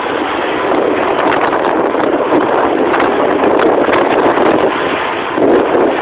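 Speedboat running through big waves: a loud, steady rush of water and hull noise, with wind buffeting the microphone.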